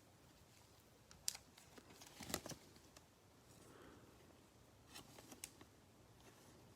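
Faint handling of glossy trading cards: a few short clicks and light rustles as cards are slid and flipped through by hand, the loudest click about two and a half seconds in.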